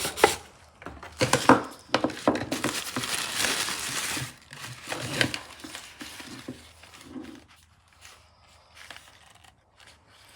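Packaging crinkling and rustling as it is handled, with scattered clicks and knocks; it dies down after about six seconds.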